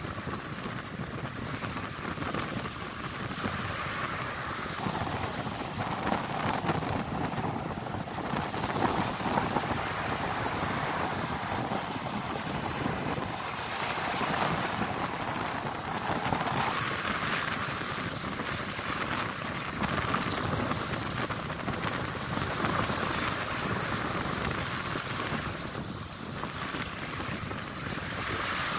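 Shallow surf washing up the sand, with wind buffeting the microphone.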